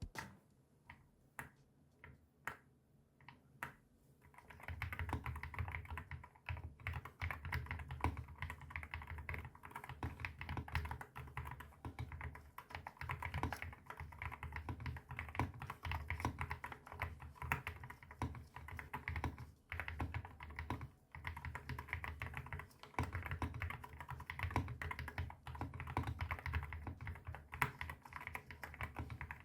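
Mechanical keyboard with Akko Rosewood linear switches, stock with their factory lube, being typed on. A few single keystrokes come first, then steady continuous typing from about four seconds in.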